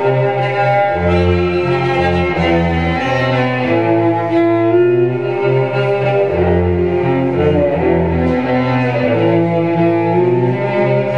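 Cello bowed in a steady run of held notes, low bass notes sounding under a higher melodic line.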